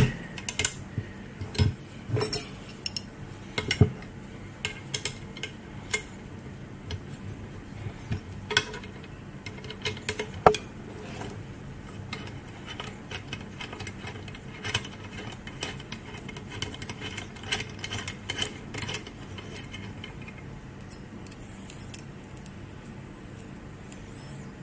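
Irregular small metallic clicks and clinks of an Allen key and screws as bolts are worked loose from a scooter rear suspension bracket, thinning out toward the end.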